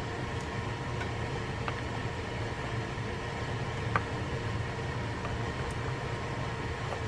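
Steady low room hum, with a few faint light clicks of a small screwdriver turning in the screws that hold the rotor-nut retainer on a Penn Clash II 2000 spinning reel. The sharpest click comes about four seconds in.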